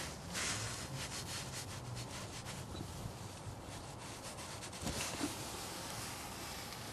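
Rubbing and scraping handling noise: a quick run of scratchy strokes in the first three seconds, then a couple of light clicks about five seconds in.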